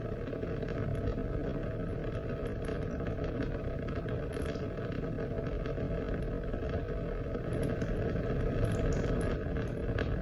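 Steady rain: a continuous low rushing with faint, scattered ticks of drops.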